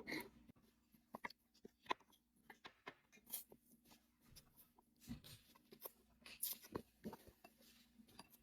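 Near silence in a small room, broken by faint scattered clicks and ticks.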